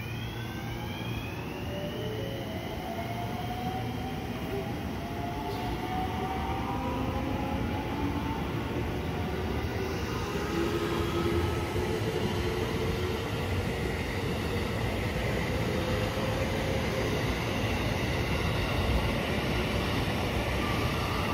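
JR West electric multiple unit pulling out and accelerating, its motors giving a whine of several tones that climbs steadily in pitch as the train gathers speed, over the rolling of wheels on rail that grows louder as the cars pass.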